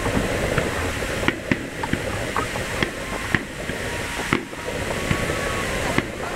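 Aerial firework shells bursting, about ten sharp bangs at uneven intervals of roughly half a second to a second, over a steady rushing background.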